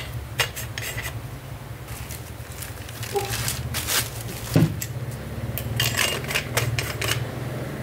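Handling noise of a wireless microphone set: irregular clicks and knocks of small hard objects being picked up and set down, over a steady low hum.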